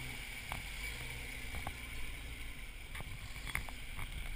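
Off-road 4x4 engine idling low and steady, with a few faint clicks scattered over it.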